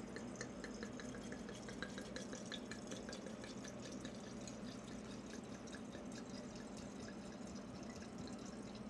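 Red wine pouring in a steady stream from a bottle into a large glass jar already holding rum, faint, with a rapid run of small glugs and drips.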